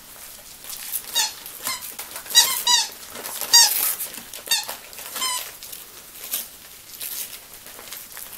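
Yorkshire terriers tearing at small gift-wrapped presents: wrapping paper rustling and ripping, with a string of short high-pitched squeaks during the first five seconds or so.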